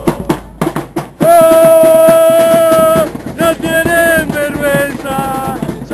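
Football supporters' band with bombo drums beating; about a second in, a loud melody comes in over the drumming, one long held note and then a short tune of stepped notes.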